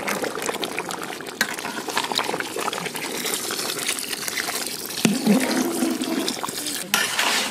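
Milk poured from a bowl into a large pan of simmering mixed-vegetable curry, the stream splashing and gurgling into the bubbling gravy. A brief voice-like sound about five seconds in.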